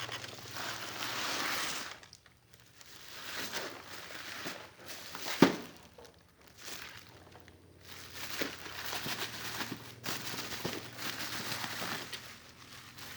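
Plastic parcel packaging crinkling and rustling as it is unwrapped by hand, in bursts with short pauses, with one sharp snap about five and a half seconds in.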